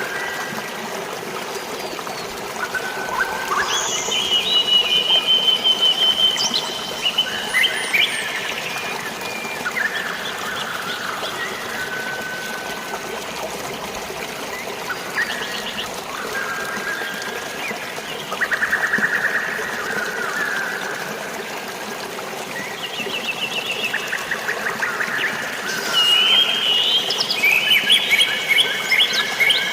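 Birds singing and chirping over a steady background of trickling, flowing water, with the birdsong busiest a few seconds in and again near the end.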